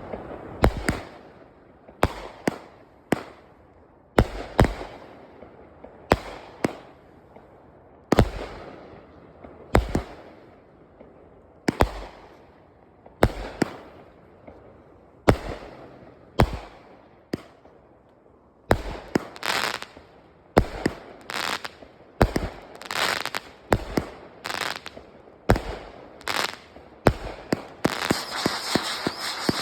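Brothers Fireworks 'Saturday Night Special' firework going off: sharp bangs about once a second, each trailing off, coming faster after about two-thirds of the way through and ending in dense crackling.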